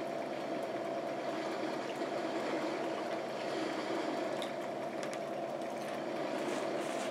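Steady mechanical room hum, even in level throughout, with a few faint clicks in the second half.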